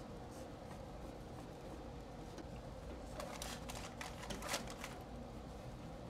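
Gloved hands peeling off and handling a thin white paper strip: a cluster of short crinkling, scraping rustles about halfway through, the sharpest near the end of it, over a faint steady hum.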